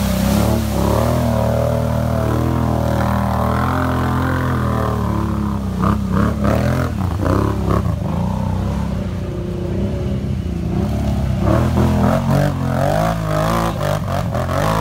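Quad bike (ATV) engine revving under heavy load, its pitch rising and falling, as it ploughs through deep mud and claws up a muddy slope.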